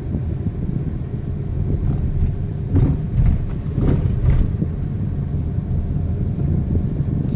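Car running with a steady low rumble, with a few short clicks or rattles near the middle.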